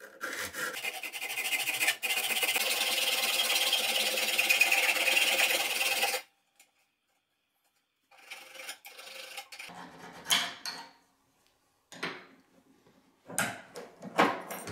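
Hacksaw cutting through the side tab of a brass toggle latch, quick continuous strokes for about six seconds that stop abruptly. After a short pause, a few scattered metallic knocks and clicks as a metal bar clamp is handled.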